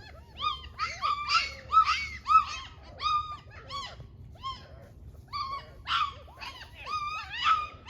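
Young puppies whining and crying: short, high-pitched cries that rise and fall, several a second and sometimes overlapping, with a short lull midway.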